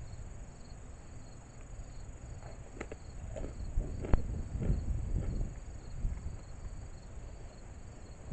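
A hard Japanese snack cracker being bitten and chewed. There is a sharp crunch about four seconds in, followed by a run of chewing crunches. Insects trill steadily underneath.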